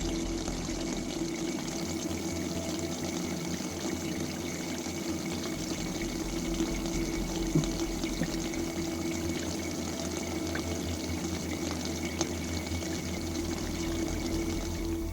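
Submersible aquarium pump running in a plastic storage box of isopropyl alcohol, circulating the liquid with a steady splashing trickle over a low electrical hum: a homemade paint-stripping bath for miniatures.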